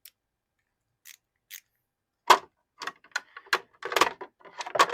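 Metal hand tools clicking and clinking as they are handled in a toolbox drawer: a few light clicks, then one sharp knock a little after two seconds in, followed by a quick irregular run of clinks.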